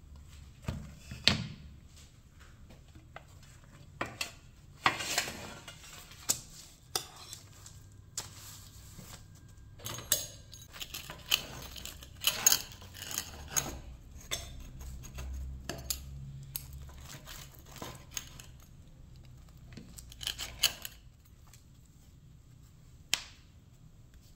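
A pizza wheel cutter rolling and crunching through a baked pizza's crust on paper, with scattered sharp clicks and knocks of metal utensils and a pan, and bursts of scraping.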